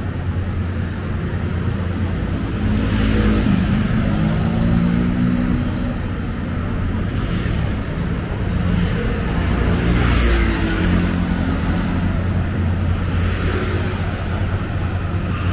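City road traffic: vehicle engines running and passing over a steady low rumble, with louder passes about three seconds in and again around ten seconds in.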